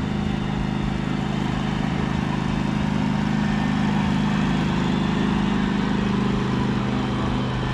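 An engine running steadily at constant speed: a low, even hum that holds its pitch, with a slight change in tone about six seconds in.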